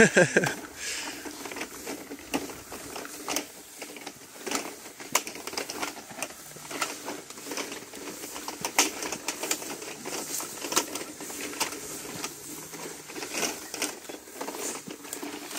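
Coil of black poly pipe being rolled by hand through dry grass, making irregular clicks, ticks and crackles from the plastic coils and the grass, with footsteps mixed in.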